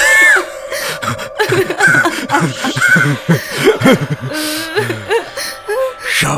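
A man laughing in short bursts while a woman sobs, with a high-pitched cry from her right at the start.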